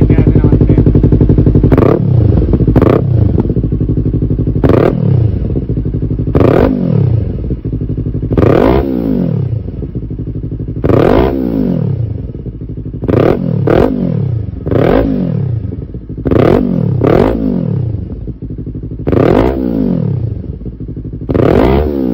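Motorcycle engine through a newly fitted SC Project aftermarket exhaust canister, being revved. It is held steady at high revs for about the first two seconds, then blipped about a dozen times, each rev rising sharply and falling back toward idle.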